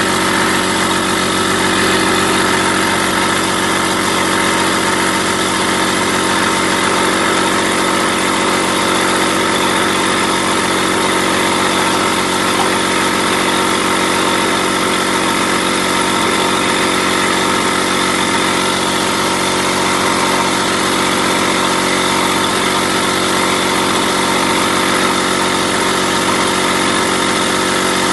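Air compressor running steadily, its motor and pump building tank pressure as the gauge climbs toward the pressure switch's 8.5 bar cut-out. It runs on without cutting out.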